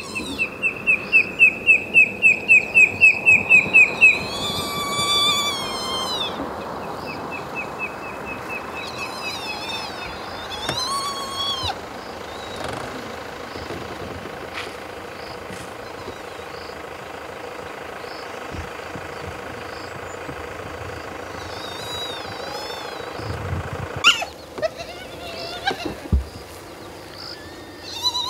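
Spotted hyena cubs whining and squealing in high, wavering cries, several times. A rapid series of high, even piping notes, about four a second, runs loudly through the first four seconds.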